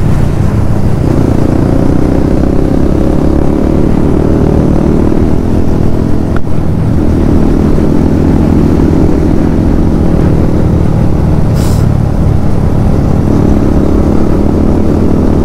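Yamaha MT-15's 155 cc single-cylinder engine running at high revs under way, its pitch shifting slightly; the engine note breaks briefly about six seconds in.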